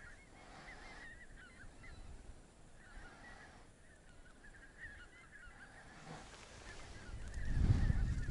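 A flock of geese calling, many overlapping honks from a distance. A low rumble comes in near the end and is the loudest part.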